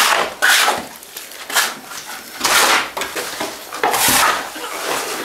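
Metal shovel and hoe blades scraping through a heap of cement mix on a concrete floor as it is mixed by hand, in about four rasping strokes roughly a second apart.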